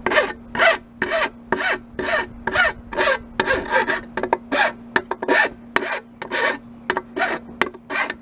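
Fine hand file rasping back and forth along the freshly cut aluminum edge of a shovel blade, taking off the burrs. The strokes are quick and even, about two to three a second.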